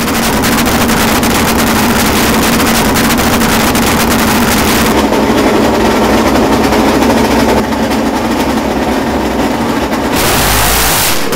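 Repco V8 racing engine of a Brabham BT31 running at steady revs, loud and continuous.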